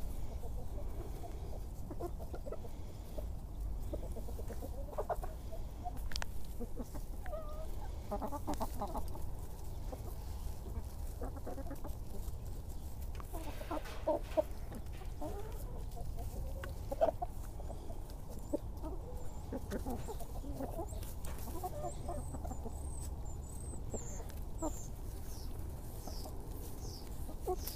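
A mixed flock of hens and cockerels clucking softly and murmuring among themselves, with a few sharp taps in the second half. Faint high chirping near the end.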